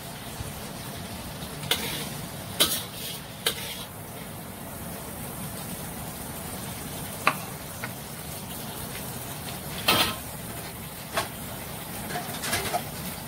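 A metal spatula scraping and knocking against a wok and a plate as stir-fried beef is dished out: a scattering of short, sharp clinks and knocks, the loudest about ten seconds in, over a steady low hum.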